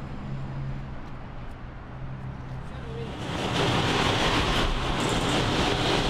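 City street ambience: a low steady hum, then about three seconds in a louder, even wash of passing traffic noise.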